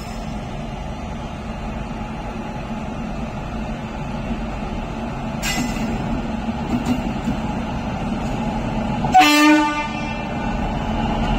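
A train running with a steady rumble that grows slowly louder, and a short horn blast about nine seconds in. A few sharp clicks are heard in the middle.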